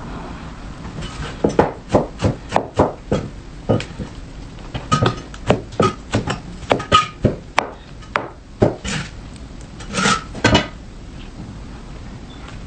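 Knife chopping against a cutting board: a run of sharp, uneven strikes, about two a second, some with a short ring, that stops about ten seconds in.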